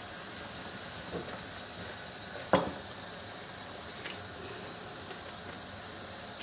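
Papri dough rounds deep-frying in hot oil: a steady sizzle, with a single light knock about two and a half seconds in.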